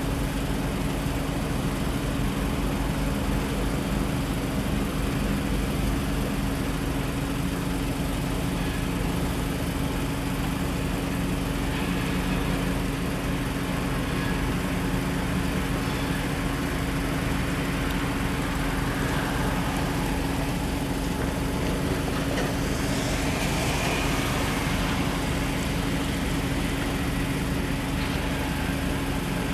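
EMD GP38-2 diesel locomotives, 16-cylinder two-stroke prime movers, running steadily at low throttle with an even hum as they creep along with a car.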